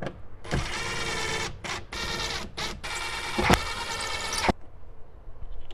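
Cordless driver running in several short bursts as it drives in the screws that bolt a car-door speaker bracket into the door. The bursts stop sharply with a click at about four and a half seconds.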